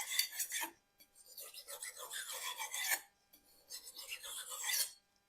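Japanese kitchen knife blade being drawn across a whetstone: a gritty scraping in three strokes, the middle one the longest at about two seconds.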